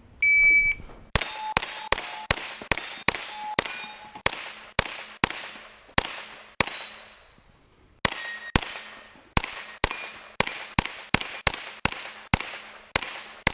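A shot timer beeps once, then a KelTec Sub2000 Gen 2 carbine fires a fast string of about two dozen shots, two to three a second, with a short break in the middle. Some shots are followed by the brief ring of steel targets being hit.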